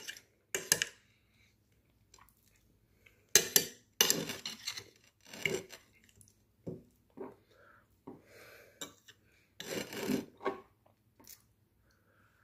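Metal fork clinking and scraping against a plate at irregular intervals as mashed potato and sausage are scooped up and eaten.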